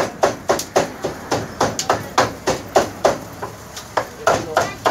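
A large cleaver chopping cooked meat on a thick round wooden block: quick, even knocks about four a second, with a short break a little past three seconds in.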